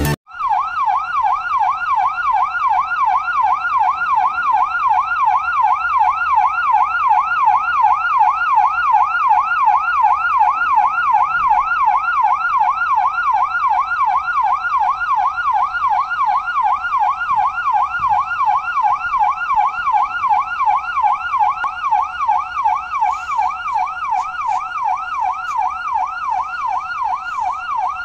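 Electronic fire-engine siren in a fast yelp, its single tone sweeping up and down about two to three times a second without a break.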